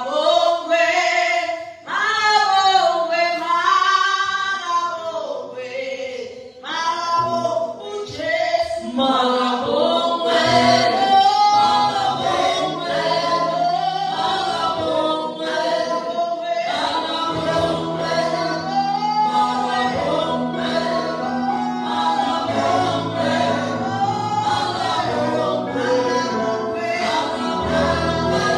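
Gospel choir singing. A single voice leads at first, and low sustained notes join under the singing about nine seconds in.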